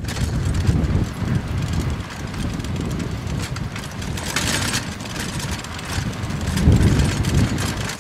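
Wind buffeting the microphone over a steady rumble of fast travel along a gravel road behind a team of three harnessed dogs.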